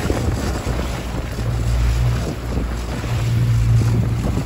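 Mercury outboard motor running steadily with the boat under way, a low hum under wind buffeting the microphone and the rush of water in the wake.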